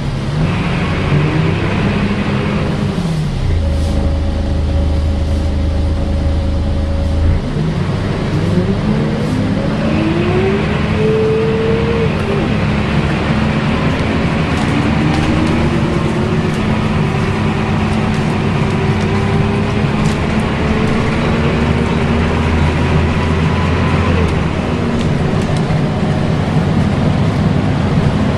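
Volvo B10BLE bus engine and its cooling fan heard from inside the bus, making the whining drone bus enthusiasts call a 'hoover'. The engine holds steady at idle for a few seconds, then pulls away, its note rising through the gears.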